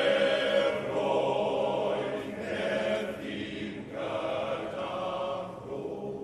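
Tenor and bass male voice choir singing sustained chords together; the phrase fades away near the end.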